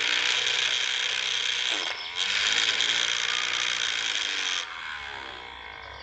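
Small motor-driven circular saw blade whirring at speed as it cuts through a plant stem, with a brief break about two seconds in; the whirr stops suddenly near the end.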